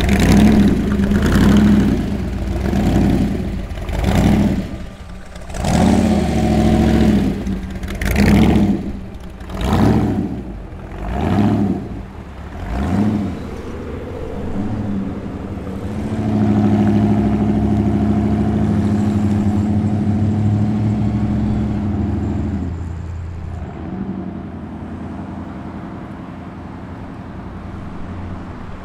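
Supercharged V8 of a T-bucket hot rod blipped hard again and again, about eight sharp revs roughly one every one and a half seconds, as it pulls away. About halfway through, a steadier engine note takes over and fades out.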